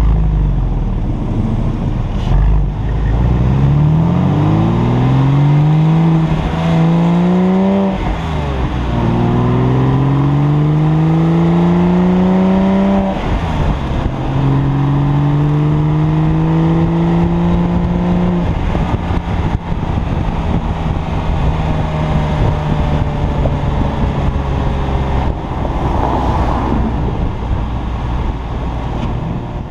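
2003 Porsche 996 Carrera's flat-six exhaust through 'Gundo-hack' modified mufflers, accelerating through three gears. The pitch rises in each gear and drops back at the upshifts, about 8 and 13 seconds in, then the note holds steady at cruise and eases off near the end.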